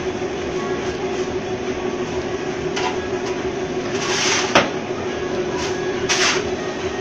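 An electric ice block crusher machine running with a steady hum. Short scraping, hissing rushes of crushed ice come every second or so, and there is one sharp knock about four and a half seconds in.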